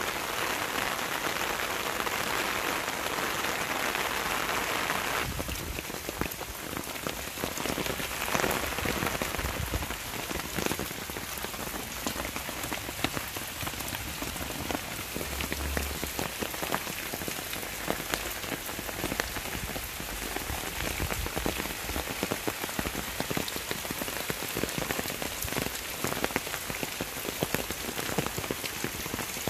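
Rain falling on garden leaves, plants and the ground, a steady hiss full of separate drop hits. The hiss is fuller for the first five seconds or so, then thins.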